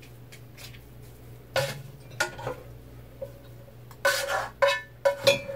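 A metal spoon scraping and knocking against a stainless steel saucepan as bread stuffing is scraped out of it into a glass bowl. A few soft scrapes come first, then, about four seconds in, a quick run of loud metallic clanks as the pan is tipped and scraped out.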